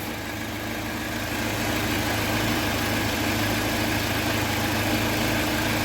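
UAZ Patriot engine idling steadily while nearly warm, with oil pressure under 1 kgf/cm². The mechanic says that low pressure may be the cause of its hydraulic-lifter knocking and timing-chain tensioner rattle.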